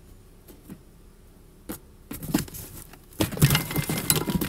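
Handling noises: a few light clicks and knocks, then about a second and a half of rustling and crinkling near the end.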